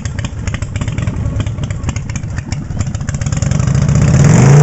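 Motorcycle engine running at an uneven, pulsing idle, then revved hard about four seconds in, its pitch climbing steeply as it gets much louder. The rev is a loud-exhaust custom bike opened up for a loudness reading in a contest.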